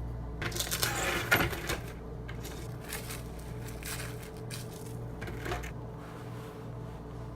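Rustling and crinkling for about a second and a half, then scattered clicks and light knocks as things are handled in a kitchen, over a steady low hum.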